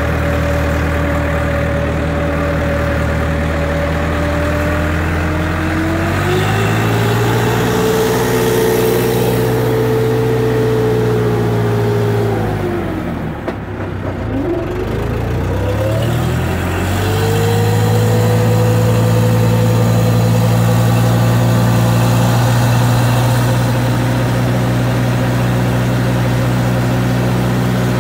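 Farm tractor engine running under load as it drags a heavy wooden beam to level chicken litter. About six seconds in the revs rise, near the middle they drop sharply and climb straight back up, then hold steady.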